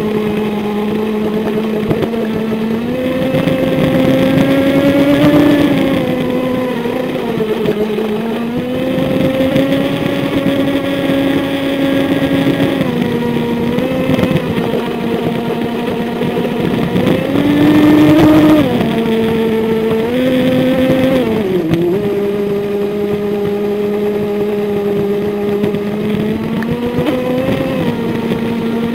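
Brushless electric motor of a small twin-hull RC boat whining as it runs, heard from a camera mounted on the hull, over the rush of water. The pitch rises and falls with the throttle, dipping a few times and climbing highest about two-thirds of the way through.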